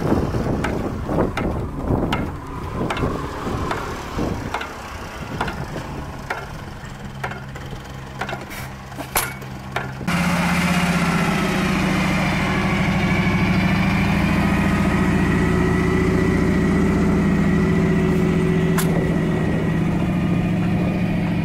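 Antique Witte stationary gasoline engine running, with sharp clicks about every two-thirds of a second and uneven low chugs. After a sudden change about halfway, a louder engine runs steadily at one constant speed.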